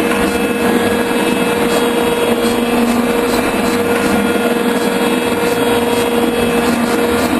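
Metalworking machine tool running steadily through a cut: a constant motor hum with a steady whine over the noise of the machining.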